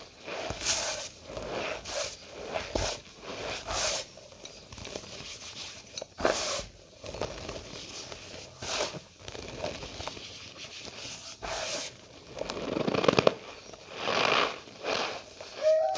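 Cornstarch powder being squeezed and pressed by hand, giving a string of short squeaky strokes, one every half second to a second. A longer, louder squeeze comes about thirteen seconds in.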